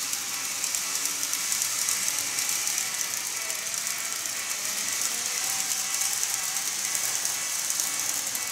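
N-gauge Keikyu model trains running on layout track: a steady high-pitched rattle of small wheels and motors on the rails, with fast fine clicking.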